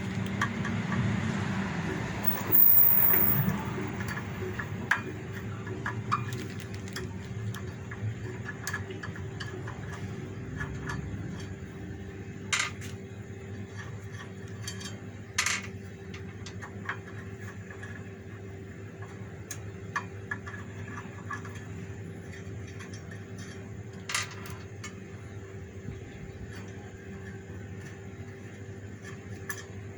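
Metal tools and parts of a meat slicer clinking and knocking now and then as it is taken apart, over a steady low hum.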